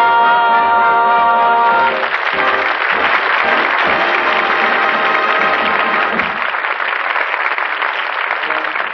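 A rock-and-roll number ends on a long held final chord that cuts off about two seconds in. An audience then applauds, with the music's beat carrying on underneath for a few seconds before the applause goes on alone.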